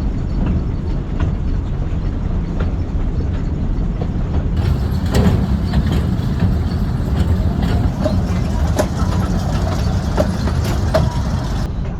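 Amusement-park mini train running along its track, a steady low rumble with scattered clicks and knocks.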